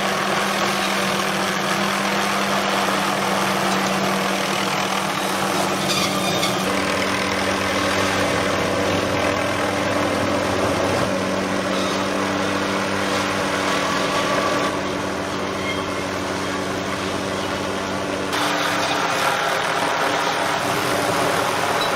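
Powerful engine running steadily with a constant hum, its pitch and character changing abruptly a few times.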